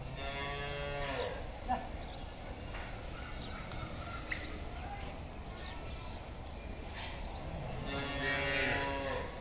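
Cattle mooing: two long, deep moos, one at the start and one near the end, with a few sharp clicks between them.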